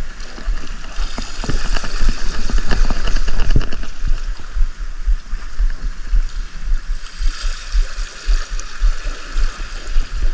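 Seawater washing and gurgling at the shoreline, with irregular wind gusts buffeting the microphone.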